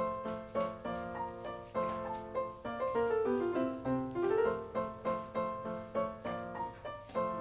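Background piano music: a steady stream of struck notes, about two a second, with rising runs.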